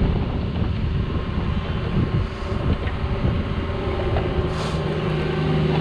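Cat 304 mini excavator's diesel engine running under load, with its hydraulics working as the bucket digs into the trench. A steadier droning tone sets in near the end.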